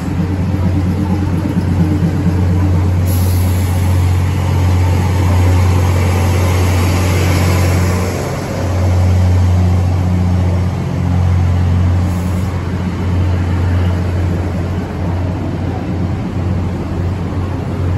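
A diesel multiple-unit express train rolls slowly past the platform as it pulls into the station. Its engines drone low and steady, with a hiss from the wheels and running gear swelling a few seconds in.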